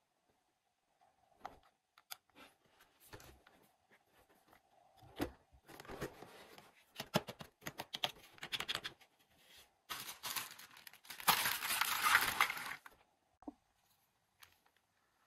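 Plastic toy-kitchen parts handled and fitted together: scattered light clicks and knocks, then a loud stretch of crackly rustling, like plastic being torn or crinkled, lasting about two seconds starting about eleven seconds in.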